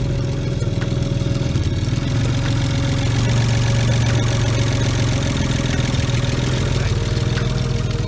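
Saab 900 SE's V6 engine idling steadily, swelling slightly a few seconds in.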